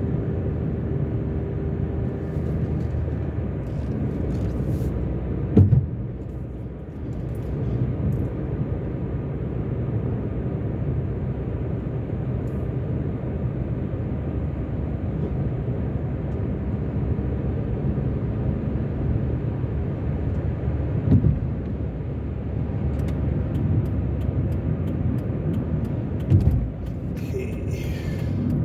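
Steady road and engine noise of a moving car, heard from inside the cabin, with three brief thumps spread through it.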